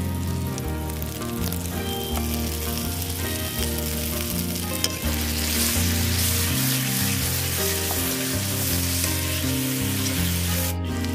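Chopped tomatoes and spice paste (masala) sizzling in a hot kadai as a metal spatula stirs them, the sizzle growing louder about halfway through. Background music with a steady bass line runs underneath.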